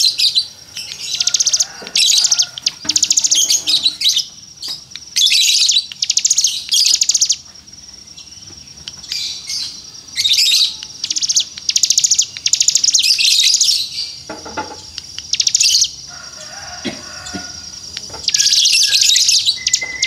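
A caged ciblek gunung, a small prinia, singing in repeated high-pitched trills of very rapid notes. Each trill lasts about half a second to a second, with short pauses between them.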